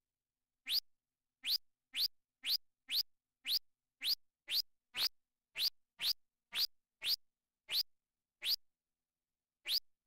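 Arturia MicroBrute analog synthesizer playing a whistle patch: a string of short, quickly rising chirps, about two a second, one for each key press.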